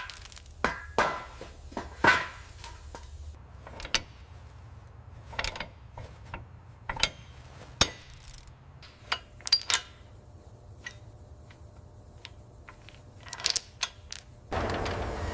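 Irregular sharp metallic clinks and taps of hand tools working on metal parts, with a faint low hum underneath.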